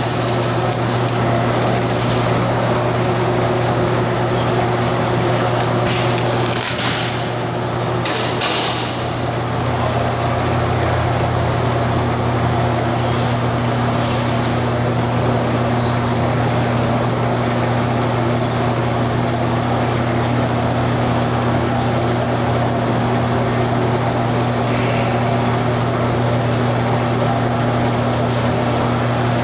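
Wulftec WSMHPA-200 turntable stretch wrapper running: a steady machine hum with a thin high whine over it, and a couple of brief noisy bursts about seven and eight and a half seconds in.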